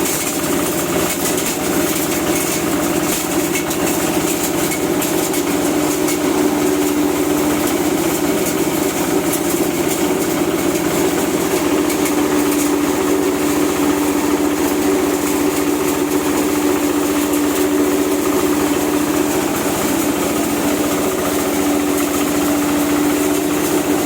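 Dry-coffee huller running steadily on a test run, a continuous mechanical drone with a steady hum.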